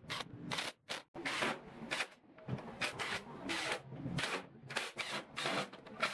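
Screws being driven into a pine box frame with a cordless drill: a dozen or so short bursts of rasping, grinding noise with abrupt gaps between them.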